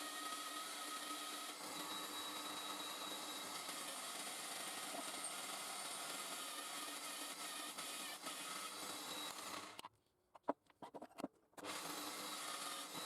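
A power tool running steadily with an abrasive rubbing sound. Near the end it drops out for about two seconds, leaving only a few clicks, then comes back.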